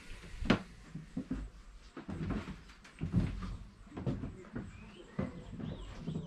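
A series of irregular knocks and clunks, roughly one a second, the sharpest about half a second in, with a few faint chirps near the end.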